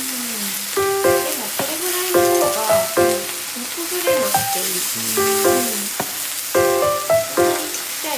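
Food sizzling in a hot frying pan, a steady hiss, under background piano music.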